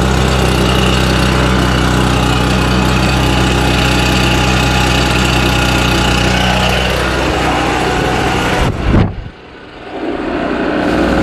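RedMax EBZ8050 backpack leaf blower's two-stroke engine idling steadily, running again after a year in storage with its fuel mix left in. About nine seconds in there is a short thump, then the sound drops much quieter for a second or two before building back up.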